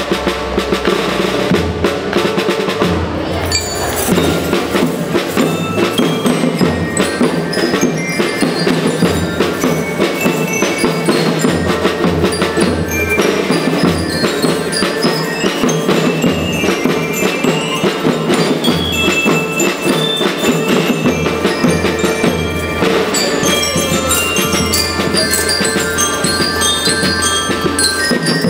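Primary-school marching band playing: bass and snare drums keep a steady beat under a bright melody on bell lyres.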